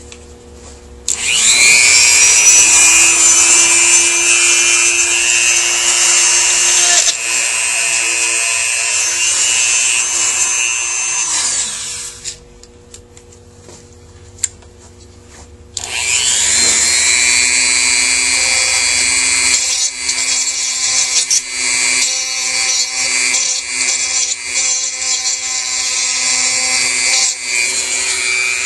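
Dremel rotary tool spinning up with a rising whine and grinding away the peened-over metal that holds the throttle position sensor in a Rochester Quadrajet carburetor body. It winds down and stops about twelve seconds in, then after a short pause spins up and grinds again.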